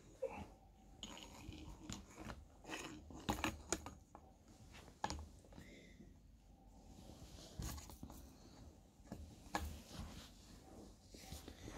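Hands handling the parts of a Hill MK4 hand pump as it is assembled on its base: scattered light clicks, knocks and rustles of the fittings being handled.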